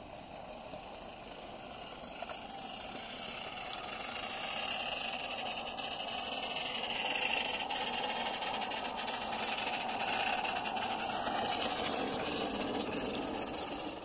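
Small garden-scale live-steam locomotives working under load as they push a snowplow through snow: steady chuffing and steam hiss that grows louder as the train approaches.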